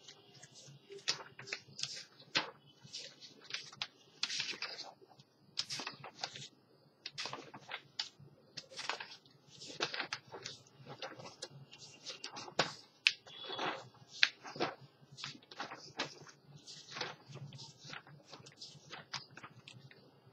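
Irregular light clicks and taps, several a second, in a small room.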